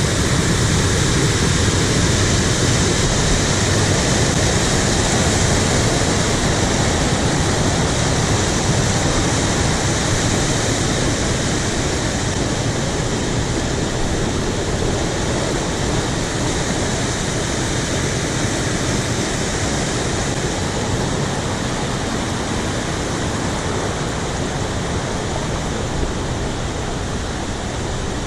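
Steady rushing roar of the York River pouring over the rock chutes of a waterfall, easing slightly toward the end.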